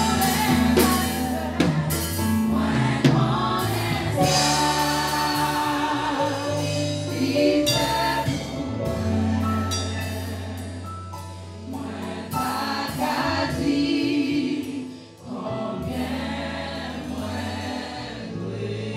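A small group of women singing a gospel worship song together into microphones, over a sustained bass line and drums. The music dips briefly about fifteen seconds in, then carries on.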